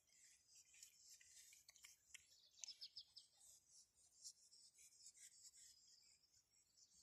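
Near silence: faint outdoor background with a faint high hiss and scattered soft ticks, and a quick run of about five faint high chirps between two and a half and three seconds in.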